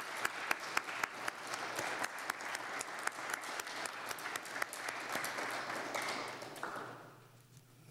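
Audience applauding: a dense spread of hand clapping with a few sharper, louder claps standing out. It dies away near the end.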